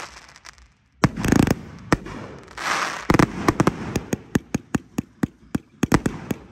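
185-shot firework cake firing: after a short lull, a loud burst about a second in, then from about three seconds in a rapid string of sharp bangs, several a second.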